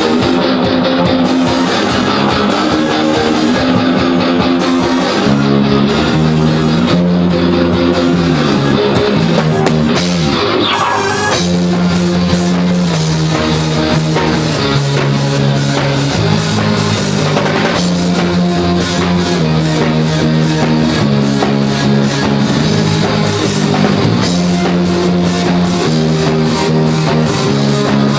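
A rock band playing live: sustained guitar chords over bass and drum kit, changing every second or two. About ten seconds in there is a sweep, after which the drums keep a fast, busy cymbal beat.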